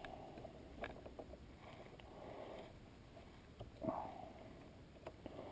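Faint metallic clicks and handling noises from a Sherline lathe's chuck being tightened by hand with its chuck tightening tools; a slightly louder short sound a little before four seconds in.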